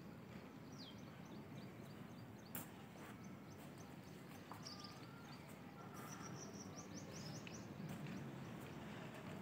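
Faint outdoor background noise with a bird chirping: one falling chirp near the start and a quick run of short high chirps past the middle. A single sharp click comes a little after two seconds in.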